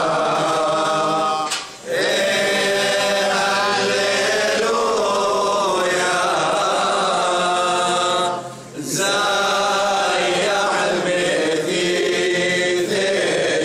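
A choir of men chanting a Chaldean liturgical hymn, the voices breaking off briefly twice, about two seconds in and again about eight and a half seconds in.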